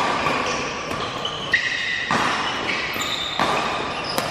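Badminton rally: rackets striking the shuttlecock with about four sharp hits spaced roughly a second apart, echoing in a large hall, with shoes squeaking on the court mat between the hits.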